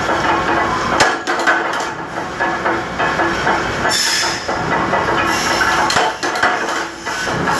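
Metal-cutting machinery running in a factory, a dense steady clatter with sharp metallic knocks as metal channel stock is fed through.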